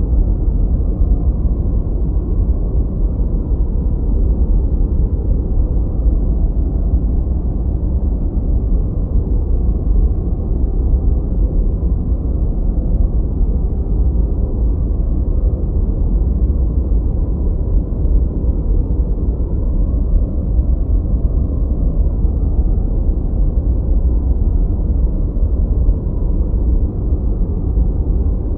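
Steady relaxation noise track, billed as white noise but heavily weighted to the bass, so it sounds like a deep, even rumble-like hiss with almost nothing in the treble. It holds level without change.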